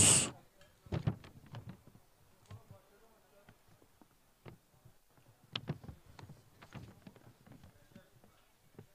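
Mostly quiet, with a few faint scattered knocks and clicks and faint distant voices.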